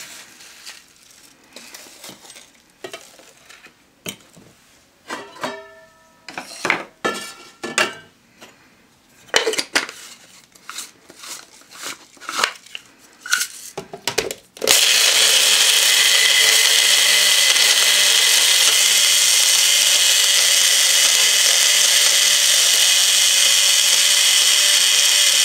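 Metal spoon clinking and scraping in a steel bowl as whole spices are scooped into a grinder cup. About halfway through, a small electric bullet-style blender grinder starts and runs steadily for about ten seconds, grinding roasted whole spices to powder, then stops suddenly.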